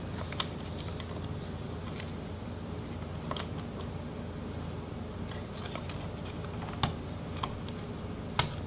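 Scattered small clicks and taps as a pry tool works cables and a connector loose inside an opened MacBook Pro A1398, the sharpest click near the end, over a faint steady hum.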